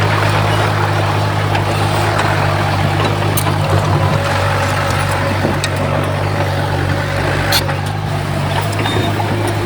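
Heavy diesel earthmoving machinery running steadily, a deep engine drone, with two short sharp clicks, about a third of the way in and again about three-quarters through.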